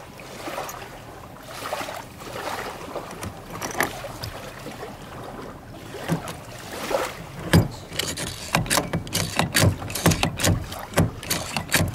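Hand pop-rivet gun being squeezed repeatedly to set a pop rivet into a plastic kayak hull: soft handling rustle at first, then from about halfway in a run of sharp clicks, two or three a second, as the handles work the rivet's mandrel.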